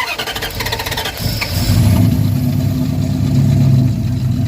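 1996 Dodge truck's petrol engine being cranked by the starter, catching about a second in and settling into steady running. The engine now starts after a no-start caused by a holed spark plug wire arcing to ground.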